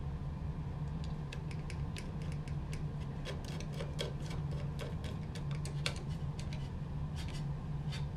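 Small irregular clicks as a hex standoff is driven into a DVI connector on a steel mounting plate with a hand driver, over a steady low hum.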